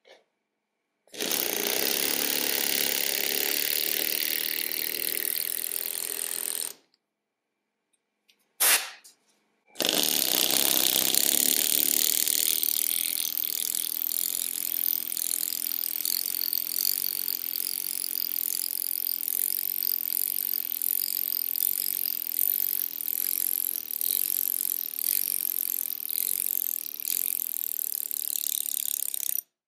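F+K pneumatic lettering hammer driving a steel chisel into Irish blue limestone: a fast, even chatter of blows as the stone is cut. It runs for about six seconds starting a second in, gives a short burst, then from about ten seconds in runs steadily until it stops near the end.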